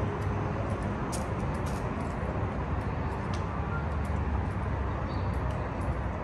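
City street ambience: a steady low rumble of road traffic, with a few faint clicks about a second in and again near the middle.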